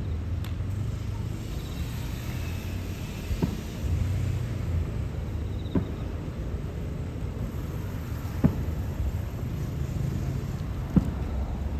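Fireworks shells bursting: five sharp bangs, about one every two and a half seconds, over a continuous low rumble of booms.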